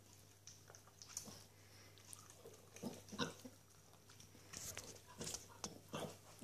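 Norwich Terrier gnawing a bone: scattered crunches and clicks of teeth on bone, irregular, with short pauses between.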